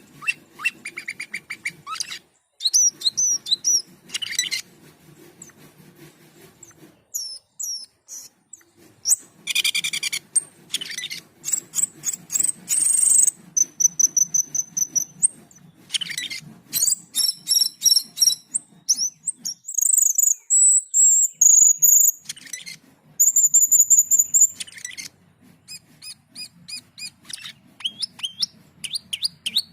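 Asian glossy starling (cucak keling) singing in full voice: a varied run of sharp chirps, fast rattling trills and high thin whistles, in bursts separated by short pauses.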